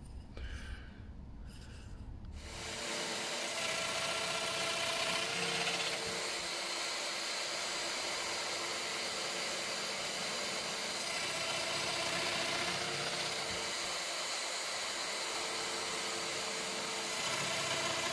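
Festool Domino joiner running steadily for about fifteen seconds while plunging mortises into a hardwood rail. It starts a couple of seconds in, after some quiet handling, and stops just before the end.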